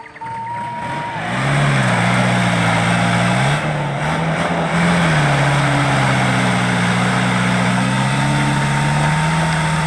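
Diesel engine of a dump truck heavily loaded with oil-palm fruit labouring up a muddy track, throwing dark exhaust smoke. It revs up and gets louder about a second and a half in, dips briefly twice, then keeps pulling hard at a steady pitch.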